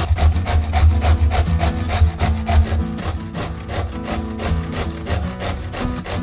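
Zucchini being grated on a stainless steel cone grater: quick, even rasping strokes, one after another. Background music with held low notes plays underneath.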